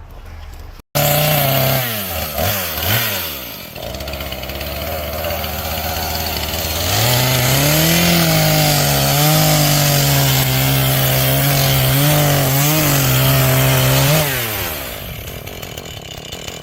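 Chainsaw engine revving and falling back toward idle after a brief break, then held at full throttle for about seven seconds as it cuts through wood before easing off.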